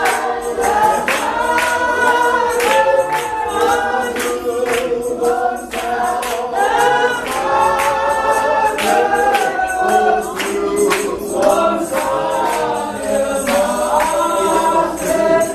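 A group of voices singing a gospel worship song together in harmony, with sharp percussive beats throughout.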